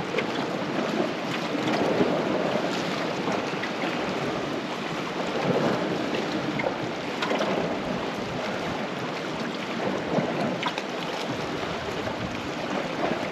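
Sea waves washing against a rocky shore, a steady rush that swells and eases every few seconds, with wind buffeting the microphone.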